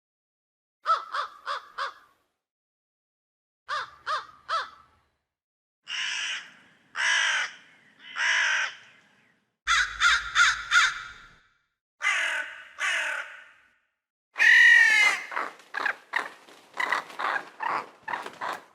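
Crows cawing in a string of separate recordings with silent gaps between them: a quick run of four caws, then three, then three longer, drawn-out caws, a rapid series, two more caws, and last a loud long caw followed by a fast run of many short caws.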